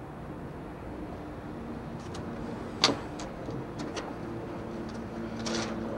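Steady low machine hum, with a sharp click about three seconds in and a short rustle near the end.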